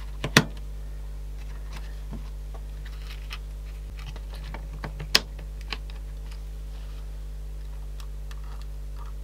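Scattered light clicks and taps from small parts being handled, with two sharper clicks, one about half a second in and one about five seconds in, over a steady low electrical hum.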